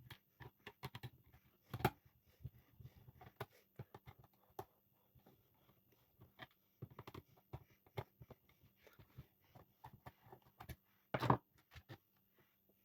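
Faint, quick clicks, taps and knocks of desk fan parts being handled and worked on during a repair, sped up. A louder knock comes just before two seconds in and a cluster near the end.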